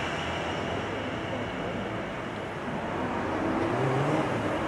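South West Trains electric multiple unit running away along the line: a steady rumble of wheels on rail. From about three seconds in, a low drone comes in, rising in pitch and growing louder.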